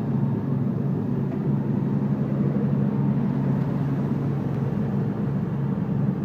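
Ingersoll Rand 750 portable towable air compressor running, its diesel engine holding a steady speed with an even, deep hum.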